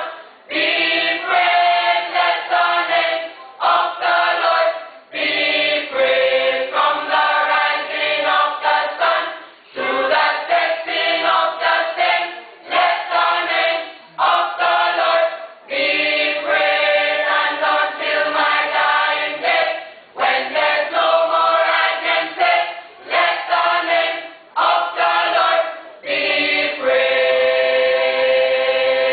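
Church choir singing in parts, the phrases broken by short breaks every few seconds.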